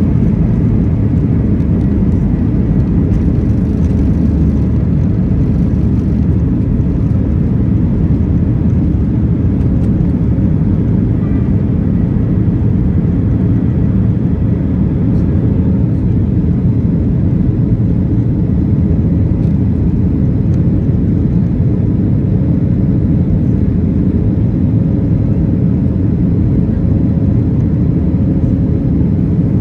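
Boeing 737-900's CFM56-7B jet engines at takeoff thrust, heard from a cabin window seat over the wing through liftoff and initial climb: a loud, steady rumble with a faint high whine above it.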